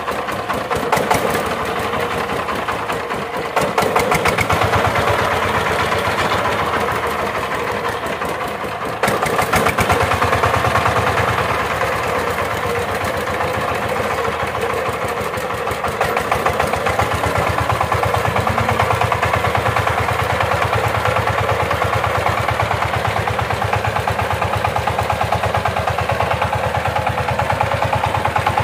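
Single-cylinder diesel engine of a Sifang two-wheel power tiller running with an even, rapid beat. It gets louder in steps at about four and nine seconds in.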